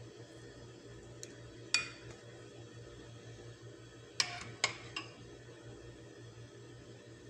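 A spoon clinking against a white baking dish while spreading cream over a layer of biscuits: one sharp clink just under two seconds in, then three quick clinks a little after four seconds, over a steady low hum.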